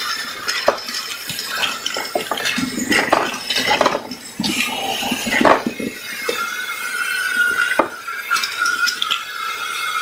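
Vacuum cleaner sucking up small batteries through its metal wand: the batteries clink and rattle as they are pulled up the tube. About six seconds in, a steady high whistle of the suction takes over.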